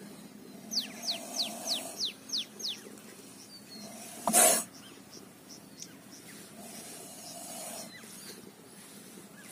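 Young cobra hissing: one short, loud burst of hiss with a knock about four seconds in as it strikes against the clear plastic jar it is held in, and softer hissing breaths around it. About a second in, a bird gives a quick run of seven falling chirps.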